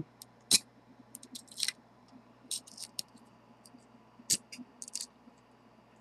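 Steel S rake scraping and clicking against the pin tumblers of a brass Master Lock 150 padlock held under light tension with a tension bar: irregular sharp clicks and short scrapes, the loudest about half a second in.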